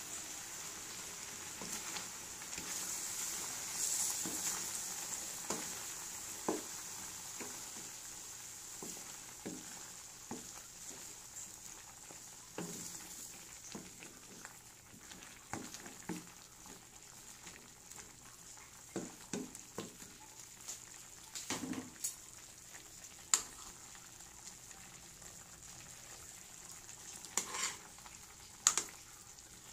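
Pork and potatoes sizzling in a saucy wok over a gas flame, a steady hiss. It is broken by scattered short knocks and scrapes of a spatula and spoon stirring against the pan, which come more often in the second half.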